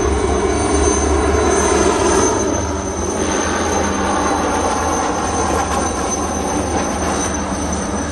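Helicopter flying low and slowly past, its rotor and turbine engine running loud and steady with a thin, high, constant whine; slightly softer after about three seconds.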